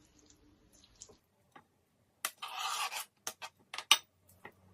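Cut-up raw chicken pieces being scraped off a board into a bowl: a short scraping slide in the middle, then several sharp clicks and knocks of kitchenware.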